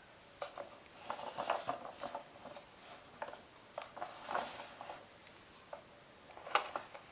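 Faint scattered clicks and light knocks of the hard plastic parts of a toy garbage truck being handled.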